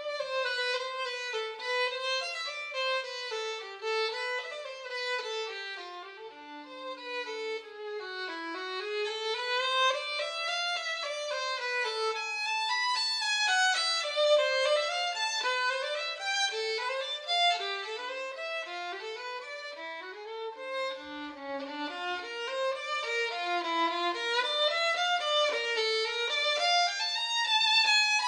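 Background music: a single instrument playing a quick, winding melody, with no bass or beat.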